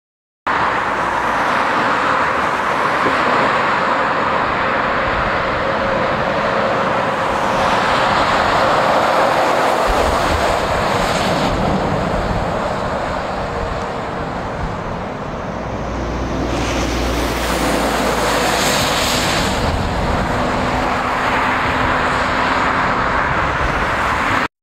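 Heavy lorries passing on the road, a continuous rush of tyre and engine noise that swells and fades as each goes by, with a deeper rumble as one comes by close near the end.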